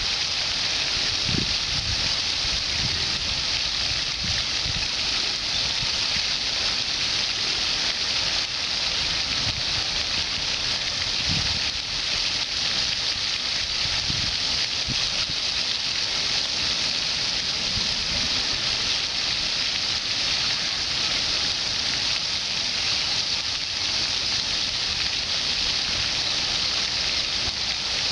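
Steady, even water hiss, with a few soft low thumps now and then.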